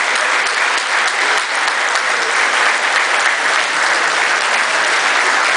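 A large audience applauding: many hands clapping in a dense, steady wash of sound.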